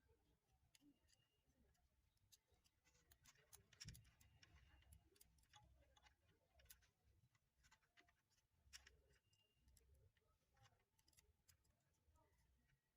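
Near silence, broken by faint scattered clicks and light taps of small parts being handled, the loudest about four seconds in.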